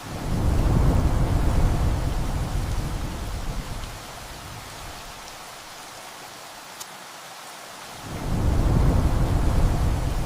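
Steady heavy rain with two rolls of thunder: one breaks at the start and fades over about four seconds, and another builds about eight seconds in and is still rumbling at the end.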